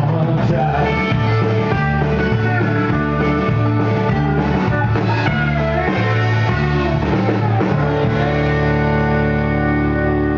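Live rock band playing through PA speakers, with electric guitar over bass and drums. From about eight seconds in, the band holds one long chord that rings on, closing the song.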